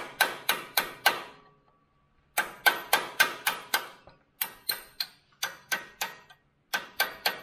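Hammer tapping a steel punch to drive a pin out of a tractor's clutch linkage: quick ringing metal-on-metal taps, about five a second, in four runs with short pauses between.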